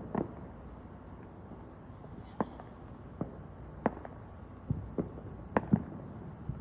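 Fireworks going off, a string of about eight sharp bangs and pops at irregular intervals.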